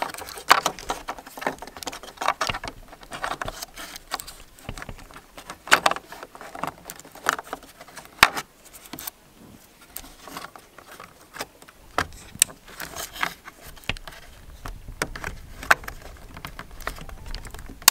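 Irregular clicks, taps and small scrapes of plastic on plastic as a plastic trim tool and wire connectors are worked inside a Mercedes C-Class W205 side-mirror housing, while the puddle light is being fitted.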